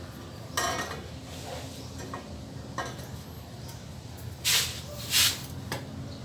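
Short scraping and rattling of metal exhaust parts being handled and fitted, an SC Project canister going onto its 51mm elbow. There are a few brief scrapes, the loudest two about four and a half and five seconds in, over a steady low hum.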